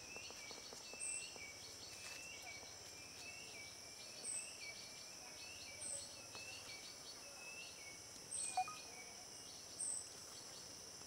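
Faint tropical forest ambience: a steady high-pitched insect drone, a continuous run of small quick chirps beneath it, and a short high call repeating five times, every second or two.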